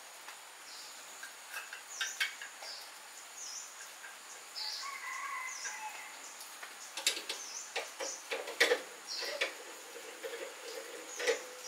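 Small birds chirping repeatedly over a faint steady high tone, with a run of sharp clicks and clunks in the middle as a metal skewer rod and bamboo tube are handled and set on a metal charcoal grill rack.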